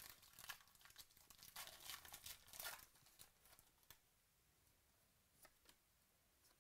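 Plastic wrapper of a trading-card pack being torn open and crinkled for about the first three seconds, faintly, then a couple of soft clicks as the cards are handled.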